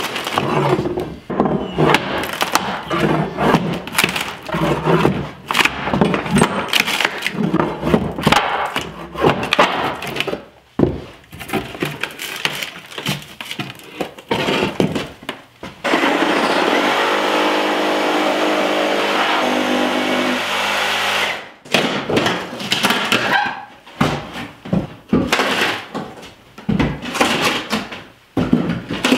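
Old plywood subfloor being torn up with a hammer: repeated irregular blows with wood cracking and splintering. About halfway through, a motor-driven tool runs steadily for about five seconds, then the hammering and breaking resume.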